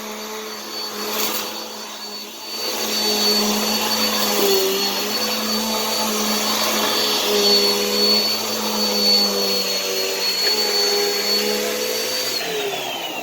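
Vacuum cleaner running steadily, its motor hum carrying a high whine with some slight wavering in pitch. Near the end it is switched off and the motor winds down with a falling whine.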